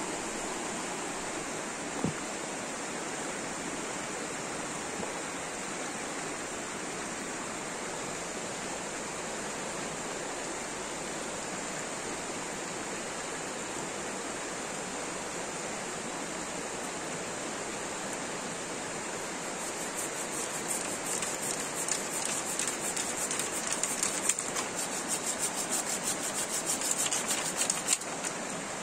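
Mountain river rushing steadily over stones, with a single knock about two seconds in. Near the end, a curved-blade pruning saw cuts through a dry branch in quick rasping strokes for several seconds, then stops.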